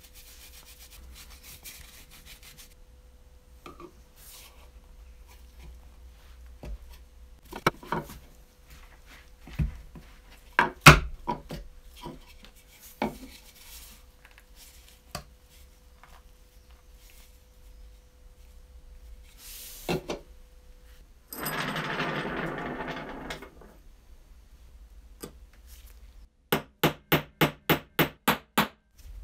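Cloth rubbing over a rubber toy-truck tyre, then a few sharp knocks and a scraping rub of about two seconds as the wheel is handled. Near the end come about nine quick hammer taps, roughly three a second, on the end of a steel axle standing on a wooden bench, seating a push-on axle cap.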